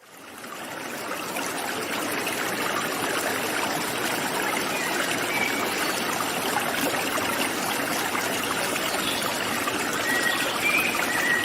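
Steady rushing, trickling noise like running water, fading in over the first second.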